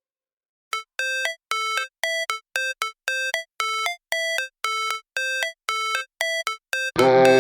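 Background electronic music: a repeating figure of short, bright synth notes starts about a second in, and a fuller track with bass comes in near the end.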